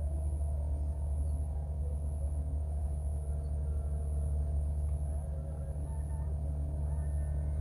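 Steady low rumble and hum, with a faint high buzz pulsing on and off about once a second.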